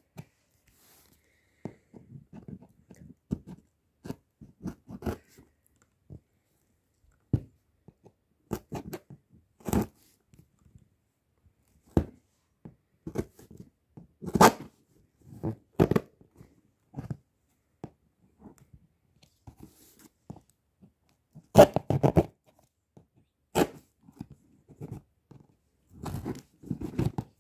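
Knife blade scraping and slicing along the packing tape of a cardboard box, in irregular short scratches and clicks, with crunches and knocks as the box is handled.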